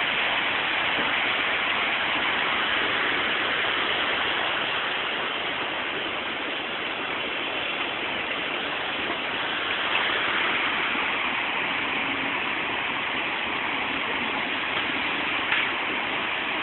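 Steady rushing of tsunami floodwater, a continuous even noise with no breaks.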